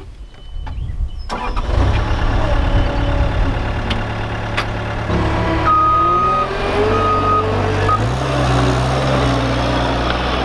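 Cat skid steer's diesel engine coming in about a second in and running steadily under load, its pitch shifting and rising near the end as the machine works. A high steady tone sounds briefly a few times in the middle.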